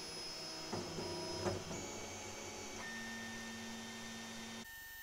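JGAurora A7 3D printer's Z-axis stepper motors whining as they move the build plate during its hardware auto-leveling routine. The steady tones shift pitch a couple of times as the moves change.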